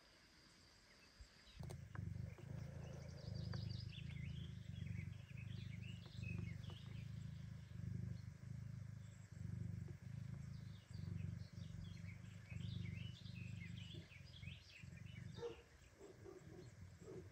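Mother cat purring steadily while her kittens nurse: a low, rhythmic rumble that swells and fades with each breath, with faint high squeaks over it and a few short mews near the end.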